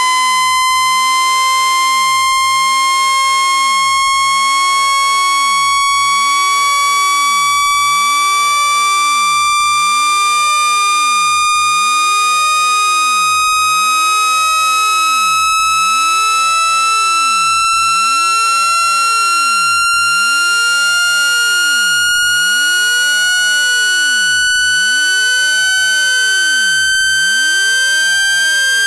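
A continuous, loud, high-pitched electronic tone that climbs slowly and steadily in pitch. It is a synthesized speaker-cleaning sweep played to vibrate water and dust out of a phone speaker.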